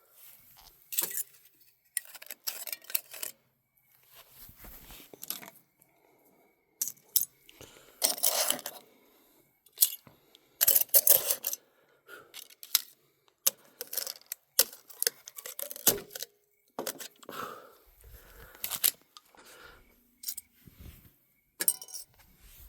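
Aluminum cans being folded, crushed and dropped into a hot crucible: irregular crinkling and crunching of thin metal with metallic clinks and scrapes, the loudest about eight and eleven seconds in.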